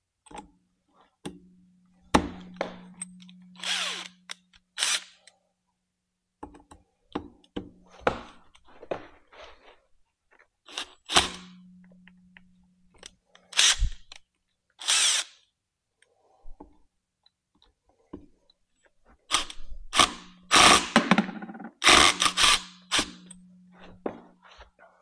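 Cordless drill-driver running in reverse in short stretches with a steady hum, backing tight Phillips screws out of an e-bike hub motor's side cover. Loud, sharp rattling bursts come in between the stretches of hum.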